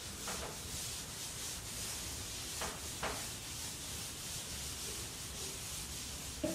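Blackboard eraser rubbing across a chalkboard in repeated wiping strokes, a continuous scratchy hiss, wiping chalk off the board.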